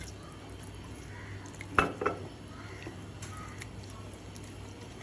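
A spatula stirring and scraping chilli-spice masala ingredients in a stainless steel mixer-grinder jar, with a few sharp clinks against the metal, the loudest a little under two seconds in, over a low steady hum.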